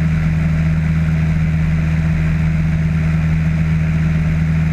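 Cessna 152's four-cylinder Lycoming O-235 engine and two-blade propeller running steadily at power in the climb after takeoff, a loud constant drone with a strong low hum and no change in pitch.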